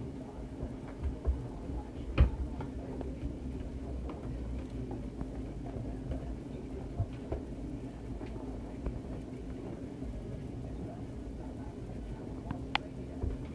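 Black Labrador chewing a large knotted chew bone: scattered sharp clicks and knocks of teeth on the bone, the loudest a bit over two seconds in and another near the end, over a steady low hum.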